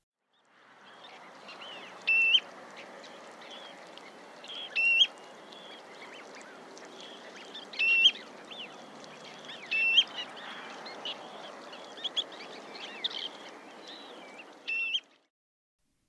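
Common ringed plover calling: short rising whistles, five louder calls two to three seconds apart with softer ones in between, over a steady faint background hiss.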